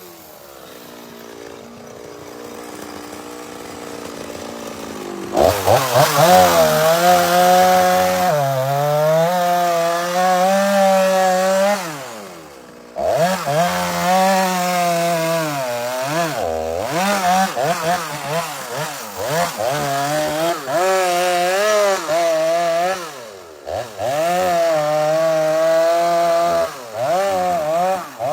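Chainsaw running quietly for about five seconds, then throttled up hard and cutting into wood. Its engine pitch sags and recovers again and again under the load, easing off briefly several times.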